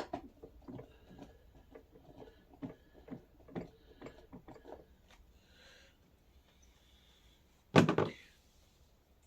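Small clicks and knocks of plastic and metal parts being handled as a wheel goes onto the front axle of a 12-volt ride-on toy truck, then one louder clatter near the end.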